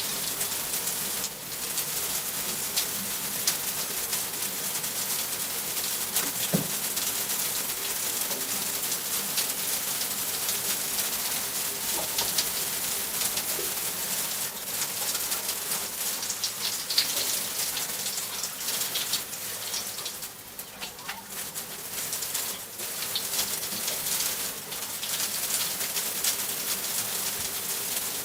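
Shower running: water spraying and splashing steadily, with a brief lull about twenty seconds in.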